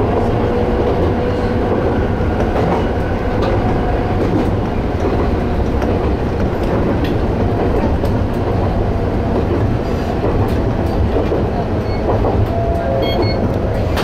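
Electric train of the Toyama Chiho Railway running along the track: a steady running rumble with faint clicks from the rails.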